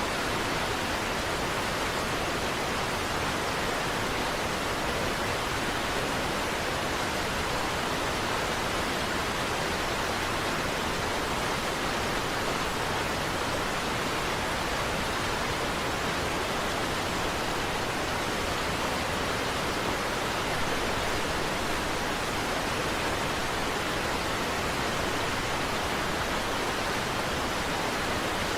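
Niagara Falls waterfall: a steady, even rush of falling water that does not change.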